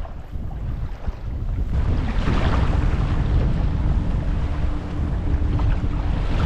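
Strong wind buffeting the microphone over water slapping and rushing along a canoe on a choppy loch; a stronger gust sets in about two seconds in.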